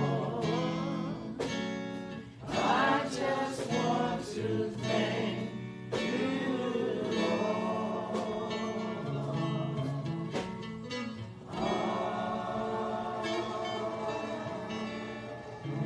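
Gospel music: voices singing together over instrumental accompaniment, with sustained, changing chords.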